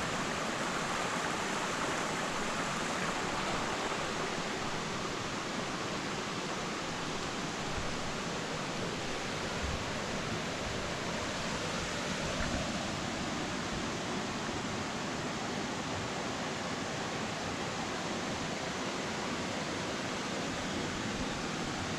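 Steady rush of water at a waterfall: an even hiss with no rhythm that does not change.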